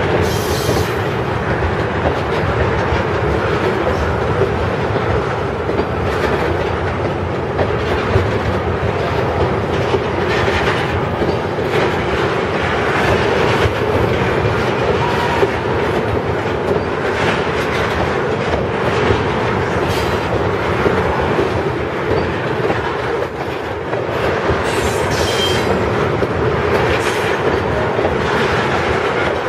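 Freight train of tank cars rolling past at speed. The wheels clack steadily over the rail joints in a continuous rumble, with a few brief high wheel squeals near the start and again about 25 seconds in.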